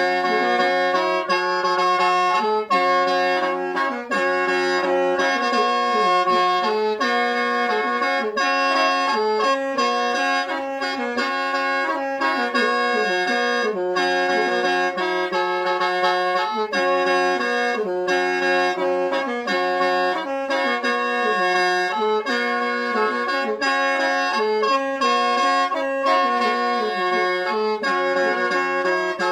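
Khaen, the Lao bamboo free-reed mouth organ, played solo: an unbroken melody over held drone notes, in a steady rhythm.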